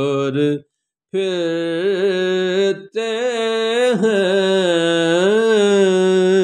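Wordless, held sung notes from a male voice in an Urdu naat, wavering slightly in pitch. They break off for about half a second near the start and briefly again near three seconds, and the pitch bends slowly about four seconds in.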